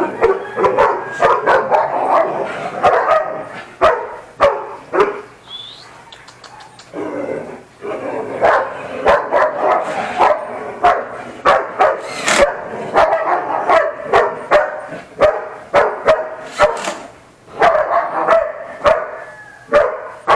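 Dobermans barking repeatedly in short, irregular barks, with brief pauses.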